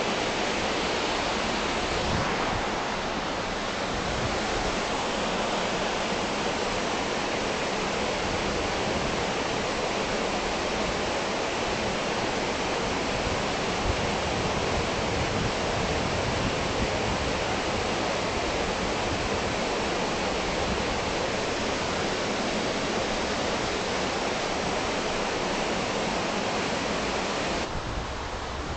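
Water pouring down a small sloping concrete weir and rushing along a channel: a steady, even rush of falling water. It gets slightly quieter near the end.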